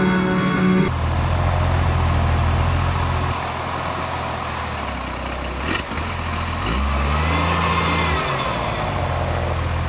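Background music stops about a second in, giving way to an off-road vehicle's engine running under load. Past the middle there is a short knock, then the engine revs up and back down.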